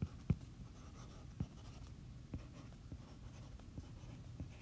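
Handwriting with a stylus on a tablet touchscreen: faint, irregular taps and light scrapes as the tip meets the glass, the sharpest tick about a third of a second in.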